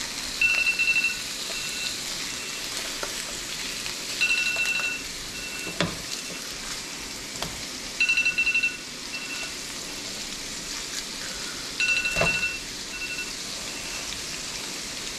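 Lake trout fillets and melting butter sizzling in frying pans. An electronic beeper sounds a short run of high beeps about every four seconds, and a couple of knocks come from a spatula against the pan.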